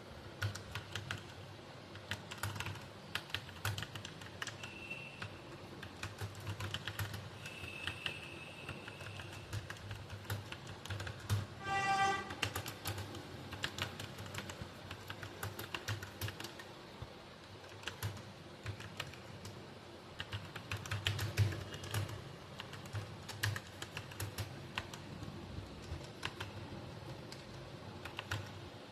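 Continuous typing on a computer keyboard: a dense stream of key clicks. A brief pitched tone sounds about twelve seconds in.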